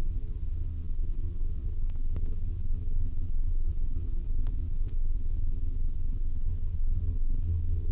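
Low, steady car rumble: an engine drone with its sound nearly all below about 500 Hz, strongest around 100 Hz, with a few faint high clicks about two and five seconds in.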